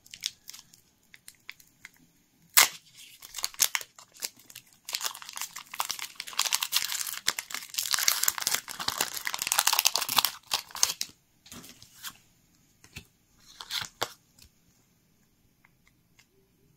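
Foil wrapper of a Pokémon 151 booster pack being torn open by hand and crinkled: a sharp snap about two and a half seconds in, then several seconds of loud tearing and rustling foil, followed by scattered small rustles and clicks as the cards are handled.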